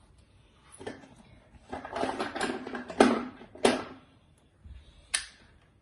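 Wooden Jenga blocks clacking against each other and against a hard stone floor as they are handled and set upright, a run of sharp knocks a couple of seconds in, the loudest about halfway, and one more knock near the end.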